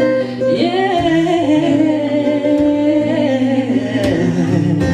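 Music: a woman singing a drawn-out, wavering 'yeah' over the song's accompaniment.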